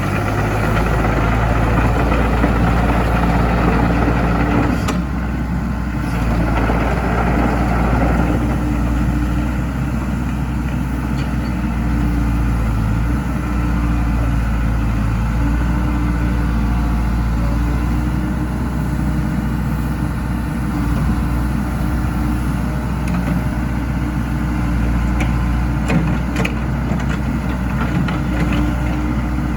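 Diesel engine of a New Holland Kobelco E80MSR mini excavator running steadily at idle. It is a little louder and busier over the first several seconds, then settles, with a few faint clicks near the end.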